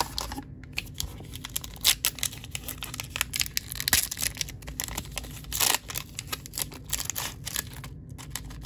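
Baseball trading cards and a pack's wrapper being handled: a quick run of crinkles, rips and card flicks, with a longer tearing rasp about halfway through.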